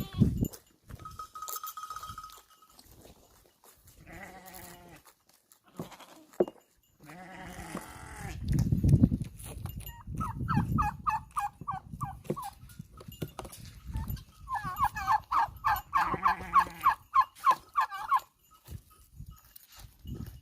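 Goats bleating a few times, with a bell ringing on the herd: one held ring early, then quick runs of clanking, about five strokes a second.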